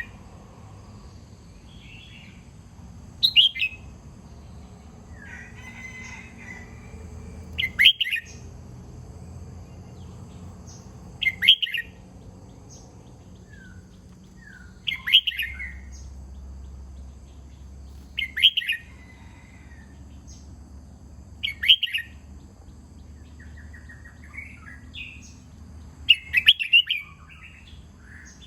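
Red-whiskered bulbul singing short, clear song phrases, one about every three to four seconds, seven in all, with faint softer chirps between them.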